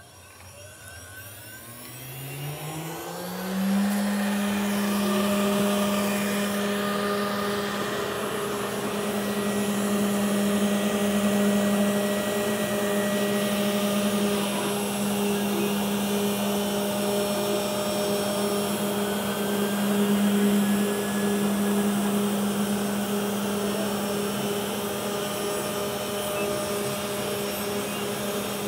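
Laguna IQ CNC router spindle spinning up with a rising whine over about four seconds, then running at a steady pitch as the router resumes carving the wood slice.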